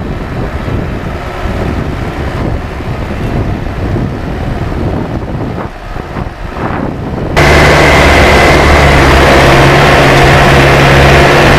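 Truck engine and road rumble while driving on a hill road. The first few seconds are quieter and rumbling, then about seven seconds in it cuts suddenly to a loud, steady engine drone.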